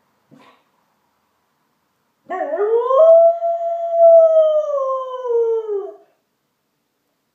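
A dog howling: one long howl of about four seconds that rises at the start, holds, and slides down in pitch near the end. A brief faint sound comes about two seconds before it.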